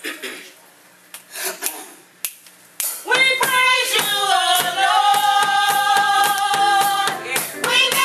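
A few scattered hand claps, then about three seconds in a women's gospel choir starts singing, suddenly much louder, with hand claps in time.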